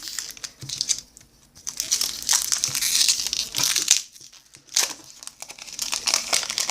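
A plastic baseball-card pack wrapper being torn open and crinkled in the hands, in uneven bursts of rustling with a short pause about four seconds in.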